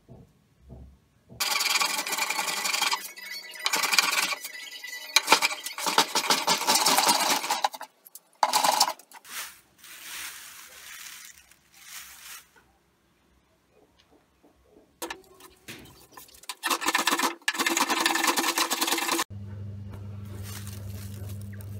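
Dry hand-plane wood shavings crackling and rustling as a hand crushes and stirs them, in several loud bursts with quieter rustling between. Near the end a steady low hum takes over.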